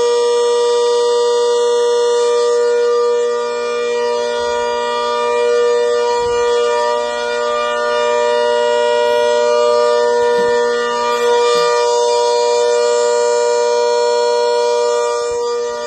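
A giant horn sounding one long, steady note with strong overtones, its loudness wavering slightly but its pitch holding.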